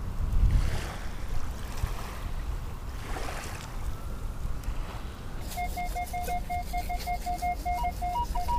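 Low rumble of wind and small waves on the shore. About five seconds in, a Minelab Equinox 600 metal detector starts giving rapid short beeps, about five a second, in a lower tone, then switches to a higher tone near the end as it passes over a target.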